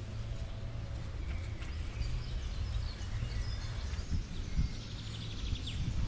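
Outdoor rural ambience: a steady low rumble with faint, scattered bird chirps.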